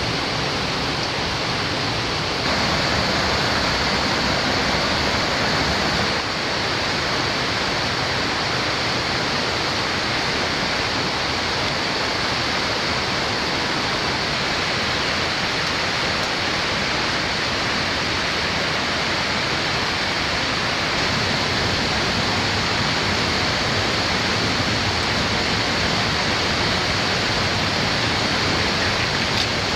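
Waterfall rushing steadily: an even, unbroken hiss of falling water.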